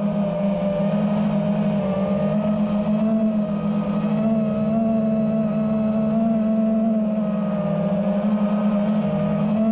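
FPV racing quadcopter's brushless motors and propellers whining at a fairly steady throttle, the pitch wavering slightly with small throttle changes.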